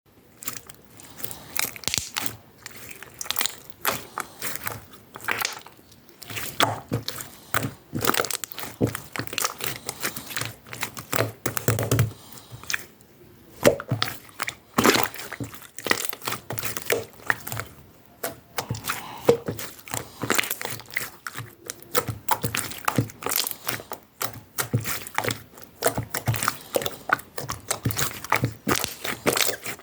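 Hands squeezing, poking and stretching pearlescent slime, making a dense run of irregular sticky pops and clicks, with a couple of brief pauses.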